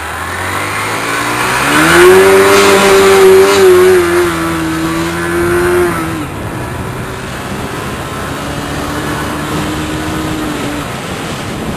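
A motor engine revs up about two seconds in, holds a steady pitch for about four seconds, then drops back; a lower steady engine note returns near the end.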